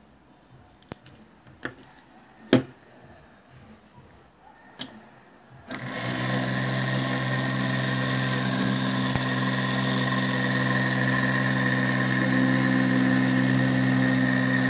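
A few sharp clicks, then about six seconds in a universal motor converted into a battery-driven pulse motor starts and runs steadily: an even hum with a high whine over it.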